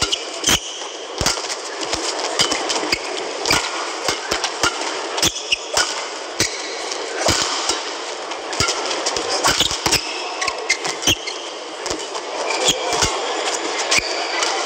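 Badminton rackets striking a shuttlecock in a singles rally: sharp cracks coming every second or so at an irregular pace, over steady arena crowd noise.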